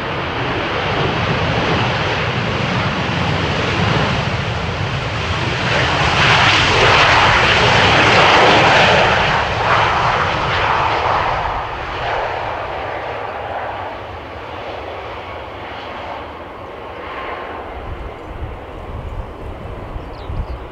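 Jet engines of a Ryanair Boeing 737 airliner running loud as it moves along the runway. The sound swells to its loudest about seven seconds in, then fades away.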